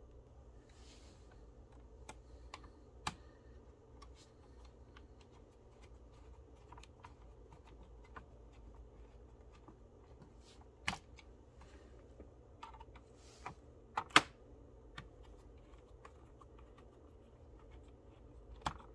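Scattered small plastic and metal clicks and taps from an HP Pavilion laptop being put back together: parts seated, then a small screwdriver driving the bottom-cover screws. A few clicks stand out, the sharpest about two thirds of the way through.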